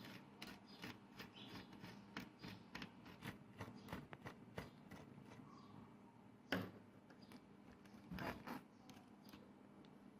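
Faint, irregular clicking and light scraping of small tools on a part, with a sharper knock about six and a half seconds in and a brief louder scrape about two seconds later.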